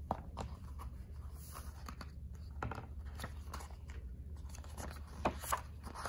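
Paper pages of a picture book being handled and turned: scattered soft rustles and light clicks, with two louder rustles about five seconds in, over a steady low hum.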